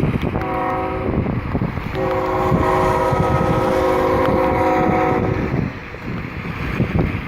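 Freight train's diesel locomotive air horn sounding a chord: a short blast, then a long blast of about three and a half seconds. Wind rumbles on the microphone underneath.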